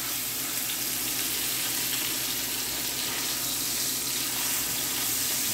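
Strip steaks sizzling steadily in hot oil in a skillet.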